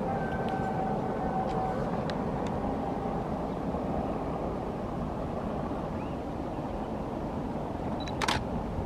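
Steady rushing noise of a waterfall. A faint steady high tone sounds for the first couple of seconds, and a single sharp click comes near the end.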